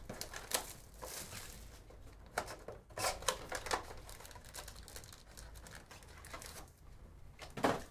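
Plastic shrink wrap being torn and crinkled off a trading-card hobby box, then the cardboard box opened and foil card packs rustled out of it. There are scattered crackles throughout and a louder one near the end.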